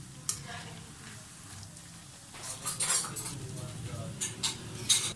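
A wire-mesh skimmer clinking and scraping against a frying pan as fried potato balls are lifted out of hot oil, over a faint sizzle of the oil. There is a series of sharp clinks, the loudest near the end.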